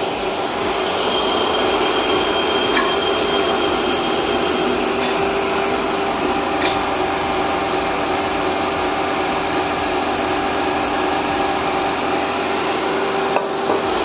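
Copper-melting furnace running: a steady mechanical hum and hiss with a constant high whine, and a few faint ticks.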